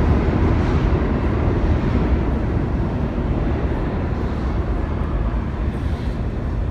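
Low rumble of a New York City subway train running through the station tunnel, slowly fading as it moves away.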